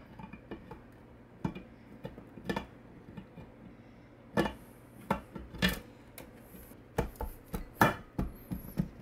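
Cylinder head of a Honda VFR800 V4 engine being worked down onto the block over its head gasket and centering dowels: irregular metal knocks, clunks and clinks, the loudest a few seconds in and near the end.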